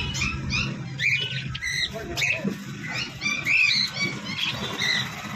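Several lovebirds chirping and chattering: many short, quick, high calls overlapping throughout. A low hum fades out about a second in.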